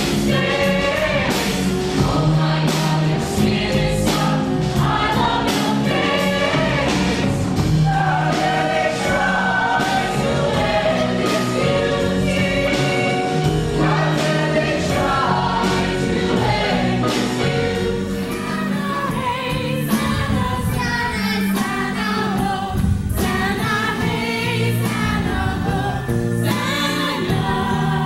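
A stage-musical chorus number: an ensemble of voices singing together over band accompaniment with a steady drum beat.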